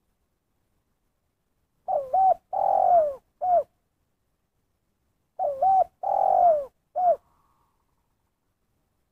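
Spotted dove cooing: a three-note call, a short wavering coo, a long falling coo and a single short closing coo (the 'kuk satu' type), given twice about three and a half seconds apart.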